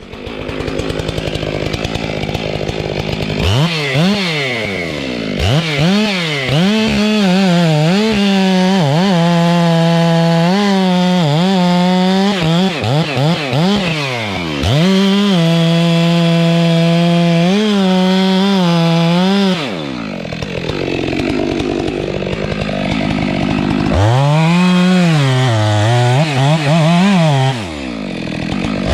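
Stihl MS 462 two-stroke chainsaw idling, then revved up and held at full throttle with brief dips in pitch as it cuts into wood. About twenty seconds in it drops back to idle, then revs up again.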